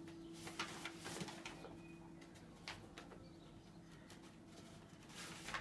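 Faint rustling and light clicks of paper sheets being handled, over a steady low hum.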